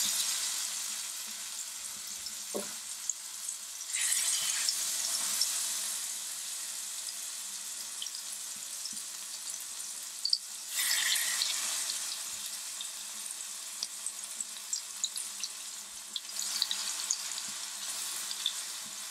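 Marinated chicken thighs sizzling as they shallow-fry in hot coconut oil in a nonstick pan. The sizzle swells louder three times, about four, eleven and sixteen seconds in, as more pieces are laid into the oil.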